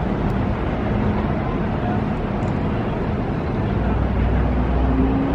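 Steady rumble of vehicle engines and traffic noise, with one engine's note rising slowly near the end.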